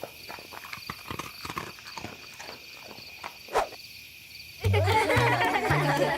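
A run of quick, irregular light knocks like clip-clopping, with one stronger knock about three and a half seconds in. Music begins about four and a half seconds in.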